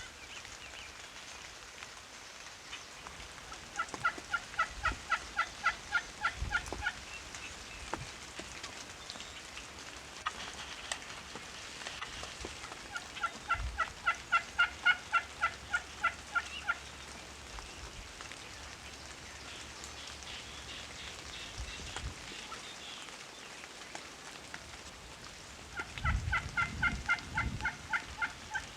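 Wild turkey yelping: three runs of rapid, evenly spaced yelps, each run lasting about three seconds. A few low thumps fall between the runs.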